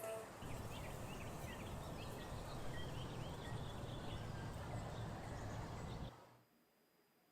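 Birds chirping, many short calls over a steady rushing background noise, which cut off abruptly about six seconds in.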